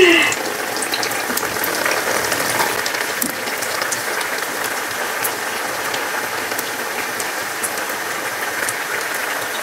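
Selroti, a ring of rice-flour dough, sizzling steadily as it deep-fries in hot oil in a cast-iron kadai, with scattered small crackles.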